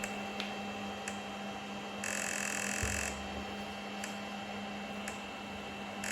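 A buzzing signal about a second long that repeats every four seconds or so, over a steady low hum, with a few faint clicks.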